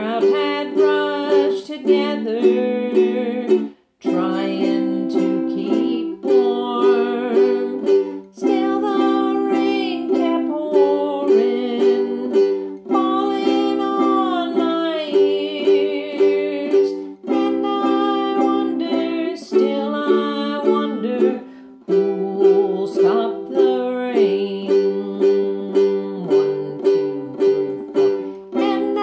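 Ukulele strumming chords in a steady rhythm in the key of G, with a voice singing the melody along.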